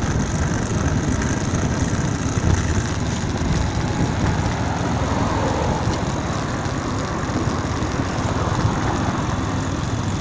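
Steady rumble of motor traffic and road noise heard from a bicycle riding along a city street.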